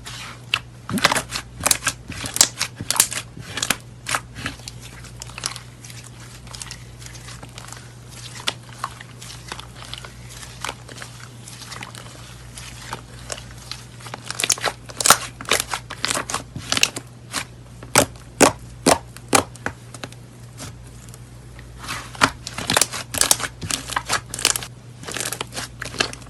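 Slime being squeezed and poked by hand, making irregular sharp pops, clicks and crackles. They come in dense runs near the start and again through the second half, sparser in between.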